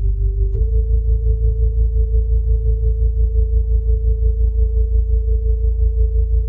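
A steady electronic drone tone over a deep pulsing hum. About half a second in, it steps up in pitch with a short click.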